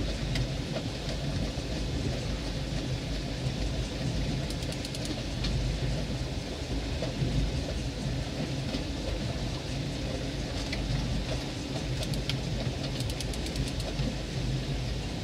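Boat motor running steadily under wind buffeting and water noise, a continuous low rumble. Brief runs of rapid clicks about four seconds in and again near the end.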